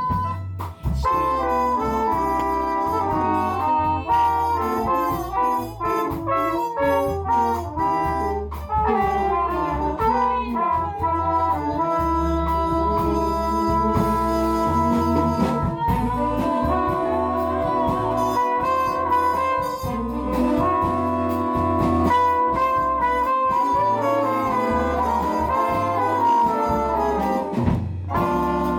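Jazz band with brass horns playing a bossa nova, the horns holding sustained chords over a moving bass line and a steady light beat.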